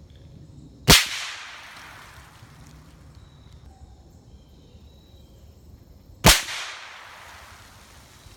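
Suppressed .308 Savage bolt-action rifle firing two shots about five seconds apart, each a sharp crack that trails off in an echo lasting about a second.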